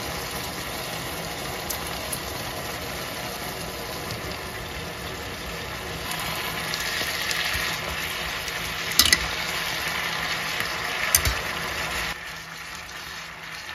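Shrimp, spinach and mushrooms sizzling in a frying pan over a steady low mechanical hum. Spaghetti is tossed in, and twice a utensil clinks against the pan, about nine and eleven seconds in.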